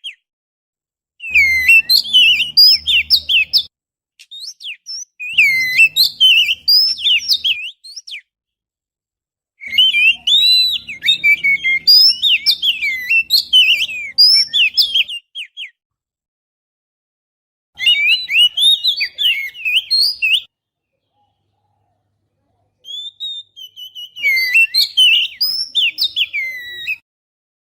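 Oriental magpie-robin (kacer) song used as a lure call: five bursts of rapid, varied whistled phrases, each a few seconds long, with silent gaps between them.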